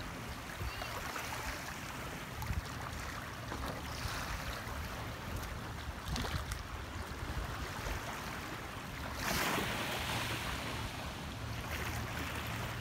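Small waves washing on a sandy shore in shallow water, with wind rumbling on the microphone. The wash grows louder about nine seconds in.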